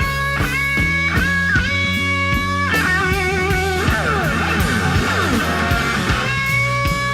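Electric blues guitar soloing live: long held, bent notes with wide vibrato, a fast descending run in the middle, then held notes again, over a bass line.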